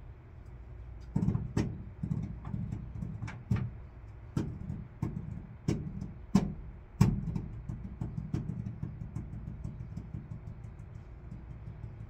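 Irregular sharp knocks and clicks from hands working on fittings at a van's sheet-metal ceiling, a dozen or so over several seconds and thinning out near the end, over a steady low rumble.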